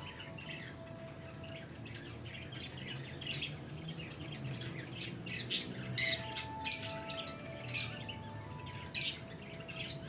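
Lovebirds chirping steadily, then five loud, shrill squawks in the second half.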